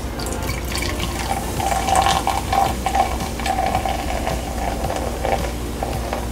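Dark beer poured in a steady stream from a glass bottle into a plastic measuring jug, foaming up as the jug fills.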